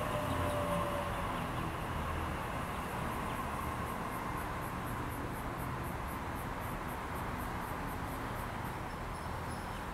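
Double-deck Sydney Trains electric train running past and drawing away: a steady rumble of wheels on track with a thin high motor whine, slowly fading as the train recedes.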